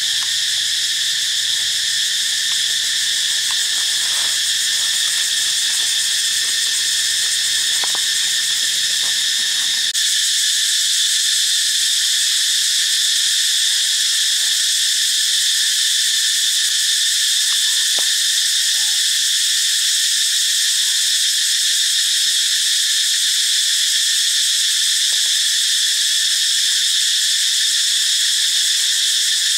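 Loud, steady, high-pitched insect chorus of a tropical forest, with a few faint clicks underneath. It gets a little louder about ten seconds in.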